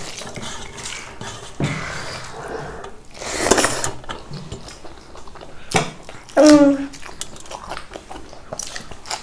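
Mealtime eating sounds: spoons lightly clinking on plates, with a breathy burst of sound about three and a half seconds in, a sharp click a little later, and a short voiced exclamation about six and a half seconds in.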